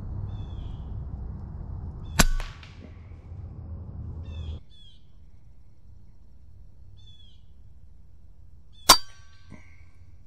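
Two shots from a suppressed FX Impact M3 .25 caliber PCP air rifle, each a sharp crack followed by a brief metallic ring, about two seconds in and again near the end; the second is the louder.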